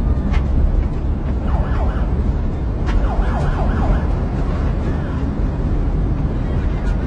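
Steady low rumble of a moving vehicle's cabin, with a siren wailing in quick rising-and-falling yelps outside, briefly about a second and a half in and again from about three seconds in.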